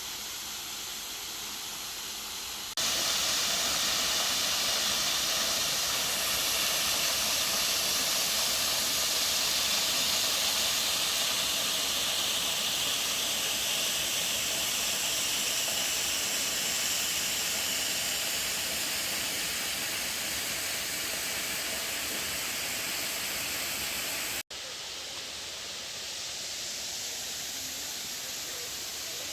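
Waterfall rushing, a steady hiss of falling water. The falls are flowing heavily after recent rain. It gets abruptly louder about three seconds in and drops back suddenly near the end.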